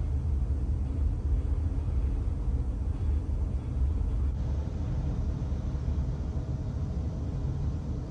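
Steady low rumble of a ferry's onboard machinery, with a faint hum of a few steady tones above it.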